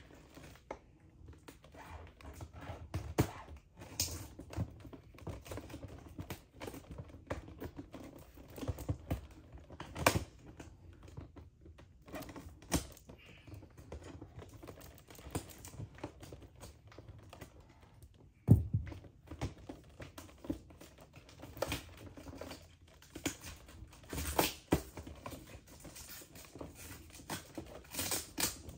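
Irregular small clicks, taps and light crinkles of hands handling a toy doll's packaging during an unboxing, with a few louder knocks.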